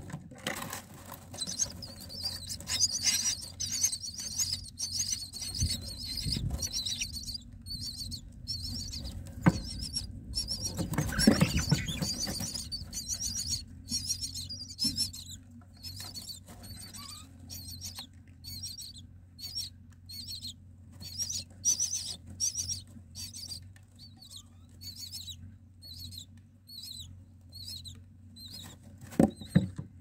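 Common myna nestlings giving high-pitched begging calls, a dense chorus at first that thins to a steady run of short cheeps about two a second. About a third of the way in comes a loud rustling flutter as the parent myna lands at the nest to feed them, and a brief flutter near the end.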